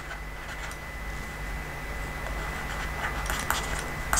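Steady electrical hum and room noise, with a thin constant high whine, and a few light clicks near the end.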